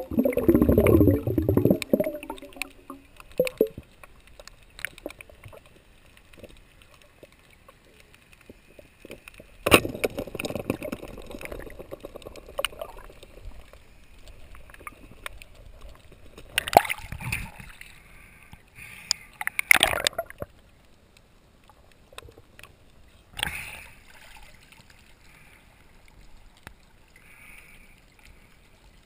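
Water sloshing and gurgling, with a few short, louder splashes.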